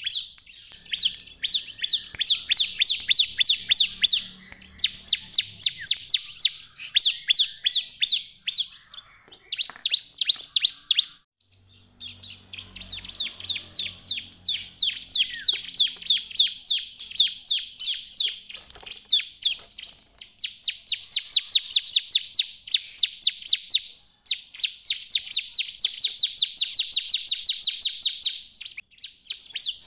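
Bar-winged prinia (ciblek) in full song: long runs of rapid, high chirping notes, several a second, broken by two short pauses.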